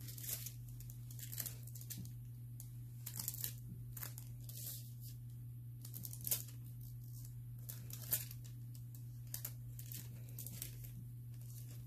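Sheet of nail transfer foil crinkling and rustling as it is rubbed down and lifted on a rock, in short scattered scrapes over a steady low hum.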